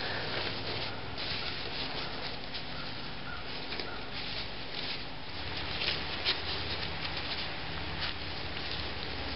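Disposable-gloved hands kneading, squeezing and pulling apart a sticky, clay-like lump of marshmallow-bound sparkler composition: soft, irregular rubbing and scratching. A low steady hum comes in about five seconds in.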